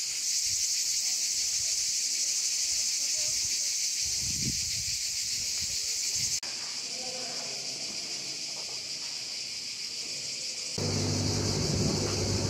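Cicadas singing, a steady high-pitched hiss that runs on unbroken. Near the end a low steady hum comes in under it.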